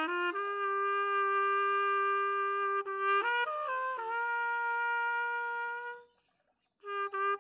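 Solo trumpet playing a slow melody: long held notes with a quick run of short notes in the middle, a brief pause near the end, then playing resumes.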